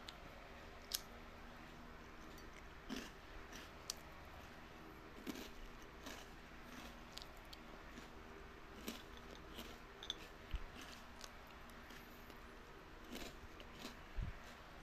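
Watermelon being bitten and chewed: scattered crisp, juicy crunches every second or two over a faint steady hum.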